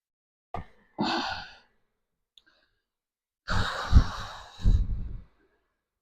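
A person sighing heavily, twice: a short breath about a second in, then a longer, louder sigh a little past the middle.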